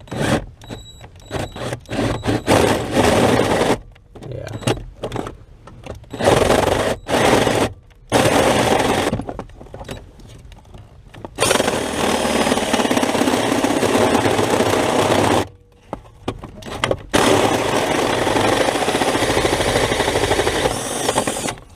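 Drill spinning a 1.5-inch hole saw through the firewall for the clutch master cylinder, first in short trigger bursts, then in two long steady runs of cutting. The saw walks around because an off-centre hole was already drilled there.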